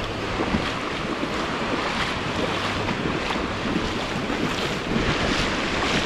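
Small waves breaking and washing over sand in shallow surf, a steady rushing wash, with wind buffeting the microphone.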